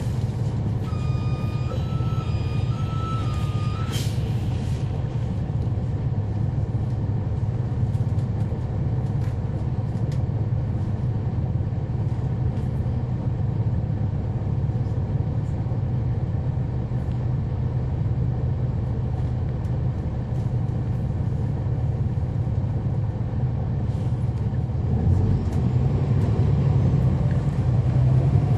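Inside a 2011 NABI 40-SFW transit bus: its Cummins ISL9 straight-six diesel runs steadily at low revs. A beeping tone sounds over it for the first few seconds. About 25 seconds in the engine note rises and gets louder as the bus accelerates.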